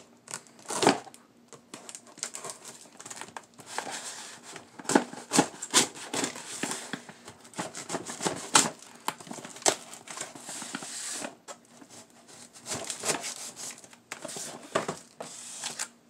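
Packing tape on a cardboard box being slit with a folding pocket knife and peeled away by hand: a long run of irregular crinkling, scraping and tearing noises.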